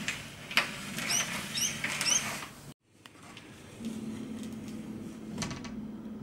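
An aluminium sliding door rolling along its track with a light rattle and a few short squeaks, cut off abruptly a little under three seconds in; after that a steady low hum with a single click.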